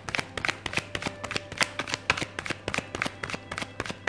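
A deck of tarot cards being shuffled by hand, overhand style: a quick, steady run of light card slaps and flicks, several a second.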